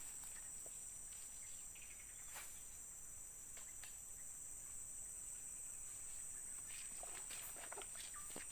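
Steady, high-pitched insect drone, like cicadas or crickets, with scattered faint clicks and knocks from handling or steps.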